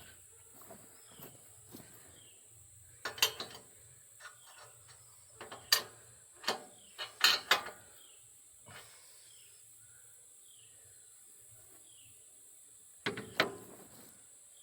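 Sharp metallic clicks and knocks from hand tools working on a sawmill's frame during leveling: a couple about three seconds in, a quick run in the middle, and two more near the end, over a steady high background drone.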